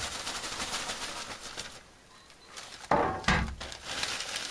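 Doubled plastic carrier bags rustling and crinkling as they are opened and handled, with a louder bump about three seconds in.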